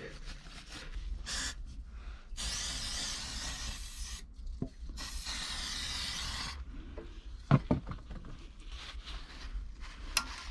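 An aerosol cleaner hisses in two steady bursts of about two seconds each, with a shorter squirt before them, as it is sprayed along the motorcycle engine's clutch-cover seam. Rubbing noises follow, and a sharp knock comes about three-quarters of the way through.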